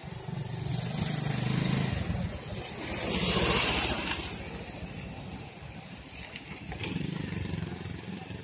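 Road traffic going past: a vehicle passes close by, loudest about three and a half seconds in, over a steady low rumble.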